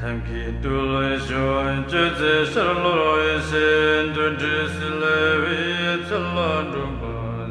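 Tibetan Buddhist prayer to Guru Rinpoche chanted melodically, the voice gliding between held notes over a steady low hum.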